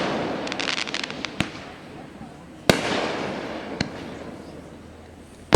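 Fireworks going off: crackling in the first second and a half, then a sharp boom about halfway through with a long rumbling echo that fades away. A few smaller pops fall in between, and another boom comes right at the end.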